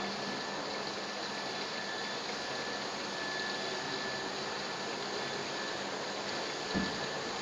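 Dry-cleaning machine running, with a steady rushing hiss like liquid splashing in the turning drum and a faint constant high whine. A single short low thump comes near the end.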